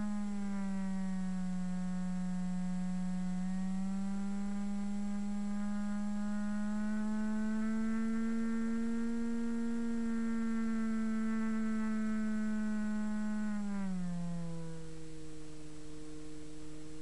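Bixler model plane's electric brushless motor and pusher propeller running as a steady whining hum, its pitch slowly rising and falling with throttle; it drops noticeably about fourteen seconds in and stays lower to the end.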